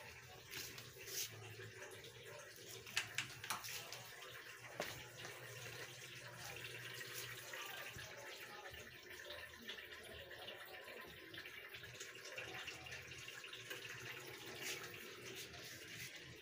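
Water running steadily with a low hum underneath, and a few light knocks in the first five seconds.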